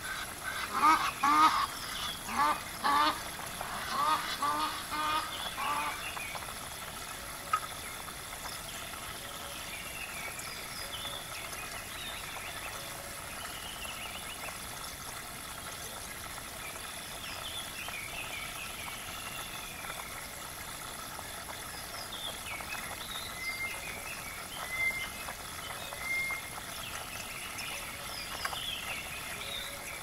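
Bird calls: a loud run of repeated calls over the first six seconds or so, then only faint, short high chirps over a steady background hiss.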